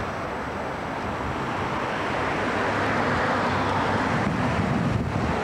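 Wind rushing on the microphone outdoors, a steady roar that swells about two seconds in.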